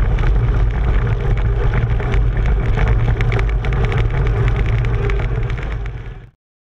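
29-inch Schwalbe Ice Spiker Pro studded mountain-bike tyres rolling fast over packed snow: a steady rumble with many small crackling clicks from the spikes. The sound fades out and stops a little after six seconds in.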